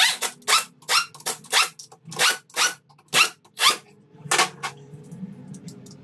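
Pneumatic impact wrench running bolts down into an engine block in short rattling bursts, about two a second, stopping near the end; a low steady hum underneath.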